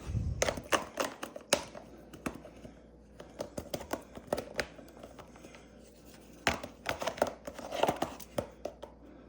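Hard plastic clicking and clattering as the parts of a full-face gas mask are handled and a filter cartridge is fitted onto the mask. The clicks bunch in the first second or so and again near the end, with quieter fumbling between.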